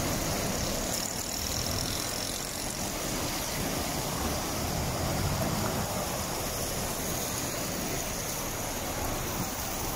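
Steady rushing noise of floodwater flowing across a street, even and unbroken.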